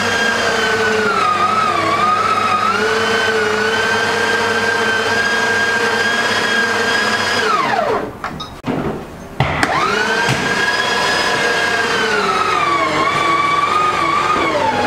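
Galaksi Electronics electric meat grinder motor running with a steady whine that sags in pitch each time meat is pushed down the feed tube. About halfway through it is switched off and winds down. A second and a half later, with a click, it starts again and runs back up to speed.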